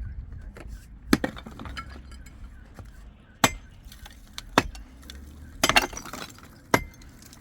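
Hard objects striking one another in sharp clinks and knocks: about five separate strikes at uneven intervals, with a brief clatter of several hits together about two-thirds of the way through.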